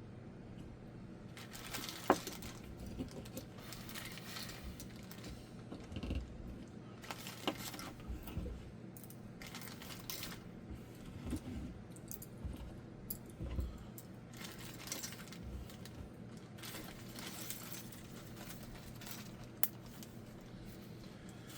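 Small plastic Lego minifigures and pieces being handled and put away, with scattered light clicks and clatters and stretches of rustling. A sharp click about two seconds in is the loudest sound.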